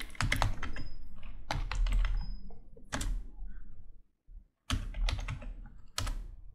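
Computer keyboard typing: runs of quick key clicks, with a short pause a little past halfway, then a few more keystrokes ending with the Enter key.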